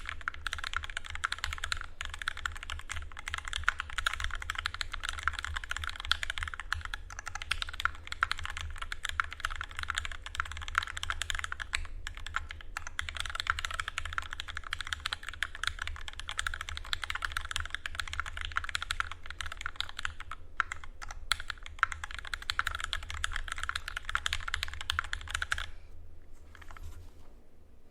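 Continuous fast typing on a custom mechanical keyboard with lubed, filmed Durock linear switches, a 4 mm aluminium plate, Cherry stabilisers and GMK keycaps. The typing stops about 26 seconds in, leaving a few lone key presses near the end over a steady low hum.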